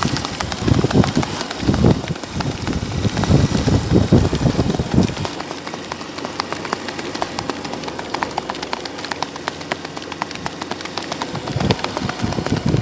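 Horse's hooves striking a dirt track in a quick, rapid rhythm as it moves at a fast gait. A low rumble sits under the hoofbeats for the first five seconds, then drops away.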